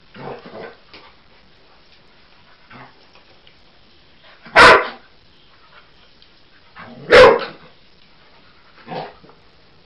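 A dog barking: two loud, sharp barks, about four and a half and seven seconds in. Fainter short barks come near the start, about three seconds in, and near the end.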